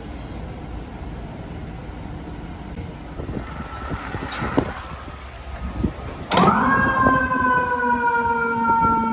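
Street traffic noise, then about six seconds in a fire truck siren starts abruptly, rising quickly in pitch and then falling slowly in a long wail.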